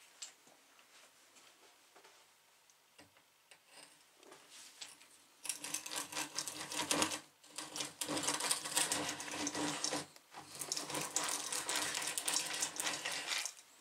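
Restored two-speed hand drill being cranked, its gears whirring and rattling as the bit bores into a wooden board. It starts about five seconds in and runs in three spells of a few seconds with brief stops between.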